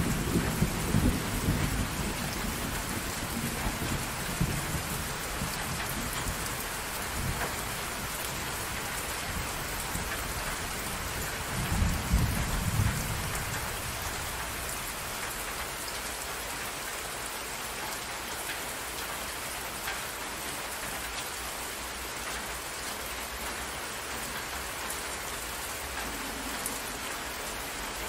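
Steady rain falling on water, an even hiss throughout, with low rumbles of thunder at the start and again about twelve seconds in.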